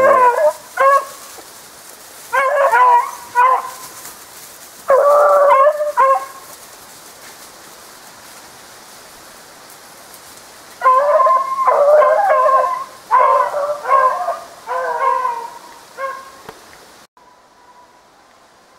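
Beagle baying on a hare's scent: bursts of drawn-out howling bays, falling silent for about five seconds midway, then a longer run of bays that stops near the end.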